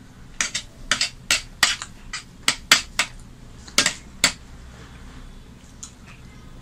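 A metal spoon clinking and scraping against the dishes as potato curry is scooped: about a dozen sharp clinks over the first four seconds, then only faint soft sounds.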